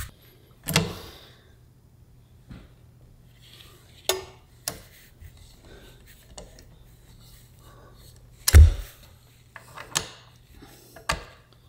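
Scattered metal clanks and knocks, about six, from a socket and long breaker bar being fitted and worked on a Triumph Bonneville T100's spin-on oil filter to loosen it. The loudest comes about two-thirds of the way through, with a dull thump.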